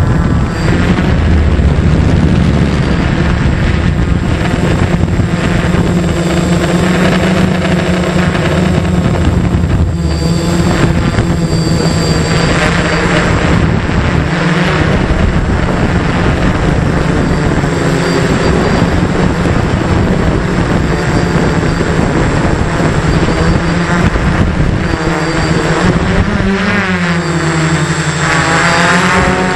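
Quadcopter's electric motors and propellers buzzing in flight, heard close through its onboard camera. A steady hum of several tones whose pitch shifts now and then and bends up and down near the end.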